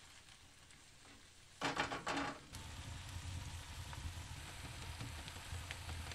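Tomato-paste and vegetable mixture frying in a cast-iron pan over a wood fire. About a second and a half in, a wooden spoon stirs and scrapes the pan in a few loud strokes, and then a steady sizzle with small crackles carries on.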